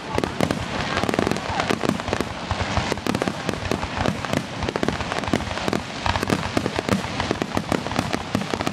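Fireworks going off in rapid succession: a dense, unbroken run of bangs and crackling.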